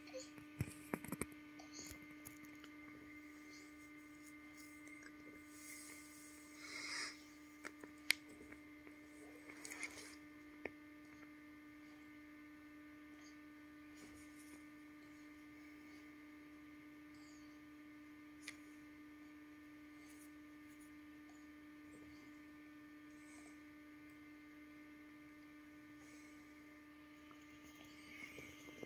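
Quiet room with a steady hum. A few soft clicks and rustles in the first ten seconds, with the loudest near seven and eight seconds in.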